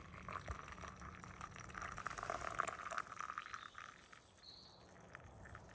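Hot drink poured in a steady stream from a cast-iron teapot into a metal camping mug, splashing into the liquid already in it; the sound thins out after about four seconds.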